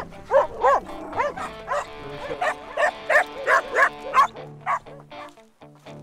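A dog barking over and over in quick short barks, about two or three a second, dying away after about four seconds, with music faintly underneath.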